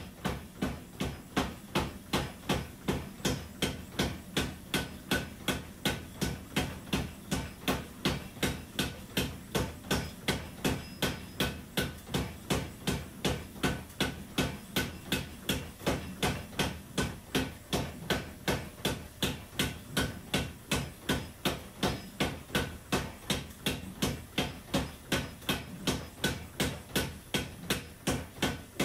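Beaudry No. 6 power hammer steadily pounding a glowing-hot mosaic damascus billet at about three blows a second, setting the forge weld and squaring the bar up.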